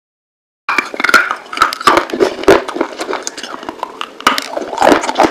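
Close-up crunching and chewing of pieces of fired clay pot, a quick, irregular run of sharp crunches that starts just under a second in.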